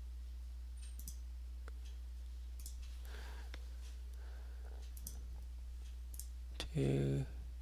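A few faint computer mouse clicks over a steady low electrical hum. Near the end comes a short, louder voice sound.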